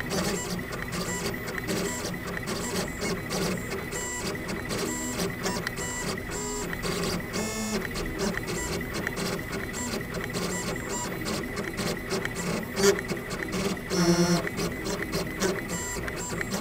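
Gravograph M20 three-axis engraving machine running a diamond drag engraving on an anodized aluminium plate: its axis motors whir in quick, stop-start moves as the head traces the lettering. There is a brief louder burst of motor noise a few seconds before the end.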